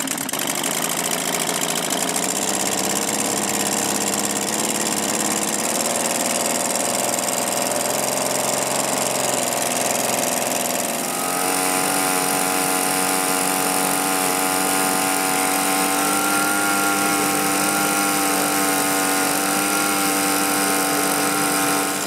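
Echo handheld leaf blower's two-stroke engine running on its freshly cleaned and rebuilt barrel-type carburetor, with the blower fan's air rush. About eleven seconds in, the engine note changes to a higher, steadier pitch while the high-side fuel mixture screw is being adjusted.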